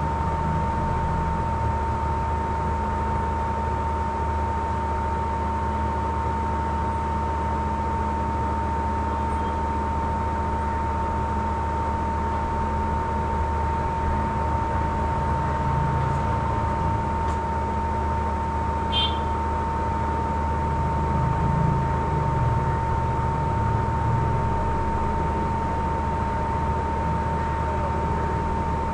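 Steady background hum and hiss with a constant high-pitched whine, with one faint click about two-thirds of the way through.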